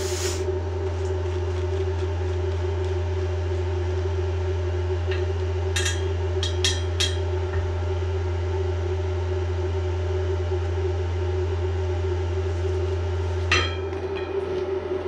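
Electric welding machine humming steadily while idle between welds, a mains transformer hum. A few sharp metallic clicks come about six seconds in, and a louder one near the end.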